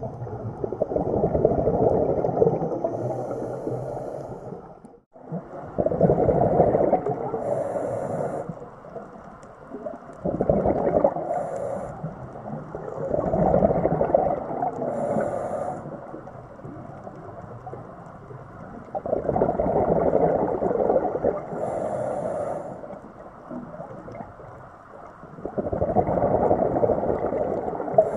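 Scuba diver breathing underwater through a regulator: long bursts of exhaled bubbles, six in all, each lasting two to three seconds with quieter pauses between.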